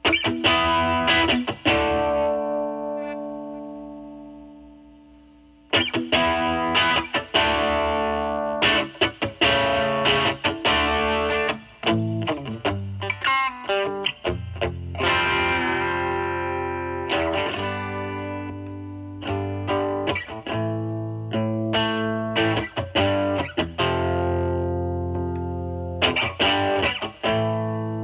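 Stratocaster electric guitar with single-coil pickups played through a DOD FX102 Mystic Blues Overdrive pedal, its drive at about 10 o'clock, into a Marshall Valvestate amp's overdrive channel: mild blues overdrive. A chord is struck and left to ring out for about five seconds, then the playing goes on in strummed chords and short runs of notes.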